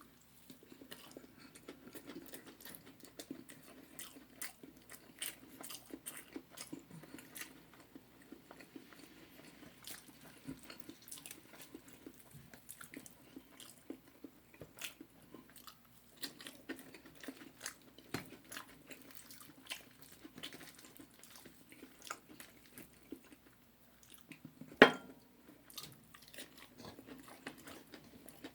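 Close-miked chewing and biting into crispy fried chicken: irregular wet, crunchy mouth clicks. Near the end there is a single louder sharp knock.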